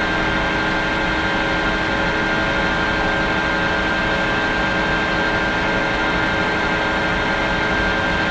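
Sharp metal lathe running steadily: an even machine hum with several steady tones over a noisy hiss.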